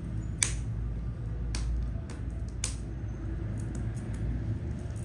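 Sealed earphone packaging being picked at by hand while trying to open it: a few sharp, separate clicks and taps, over a steady low hum.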